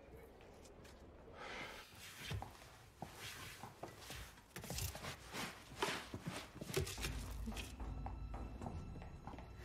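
A run of soft, irregular knocks and clicks over several seconds, giving way near the end to a low steady hum.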